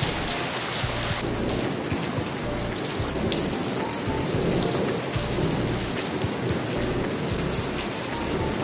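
Heavy rain pouring steadily: a dense, even hiss with scattered ticks of individual drops.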